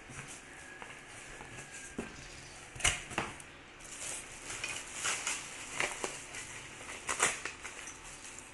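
Packaging and parts of a boxed stainless steel dish rack being handled during unpacking: rustling with irregular clicks and knocks, the loudest about three seconds in and about seven seconds in.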